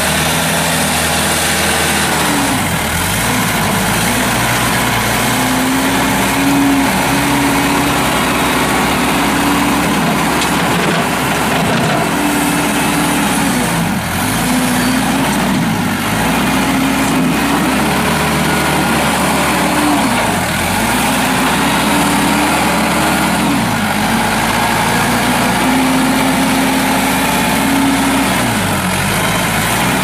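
New Holland TC55DA compact tractor's diesel engine running at working speed as its front loader digs into a dirt pile and lifts the bucket. The engine note dips sharply several times as it takes load, then picks back up.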